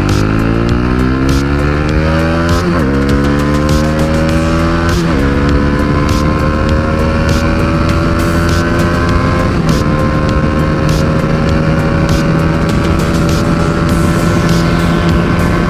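Motorcycle accelerating hard on a top-speed run: the engine note climbs, drops sharply at upshifts about 3, 5 and 10 seconds in, then rises only slowly as the bike nears its top speed. The exhaust is loud.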